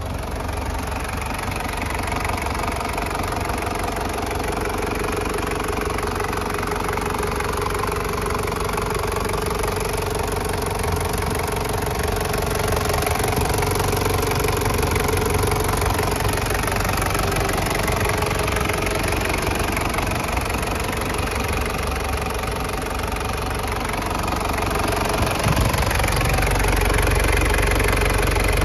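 Toyota Land Cruiser Prado KZJ95's 1KZ-TE 3.0-litre four-cylinder turbo-diesel idling steadily, heard close up with the hood open. It grows a little louder near the end.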